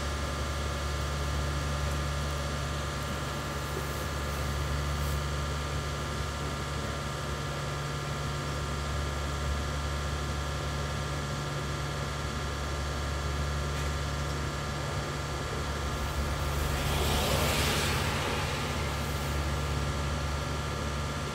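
A steady mechanical hum with a strong low drone and several steady tones over it, and a brief rushing hiss swelling and fading a little over three-quarters of the way through.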